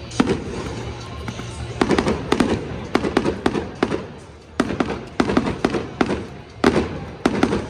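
Fireworks going off in rapid volleys of sharp bangs and crackle, coming in three clusters about a second long each, with music playing underneath.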